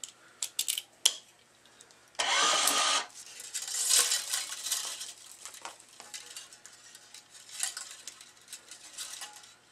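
Metal flying clamp being fitted onto two racket strings: light metallic clicks and clinks, with a louder rasping scrape a little over two seconds in that lasts under a second, and softer scraping and clicks after.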